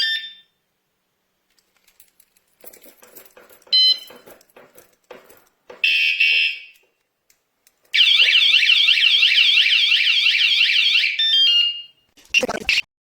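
Wireless bike alarm sounding: short high beeps, soft clicks, a single steady warning tone, then about three seconds of loud siren warbling rapidly up and down, which stops and gives way to a few more beeps. A sharp clatter comes near the end.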